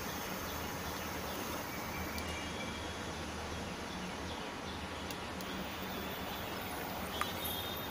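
Steady low hum with an even hiss, kitchen background noise with no distinct event, and one faint click about seven seconds in.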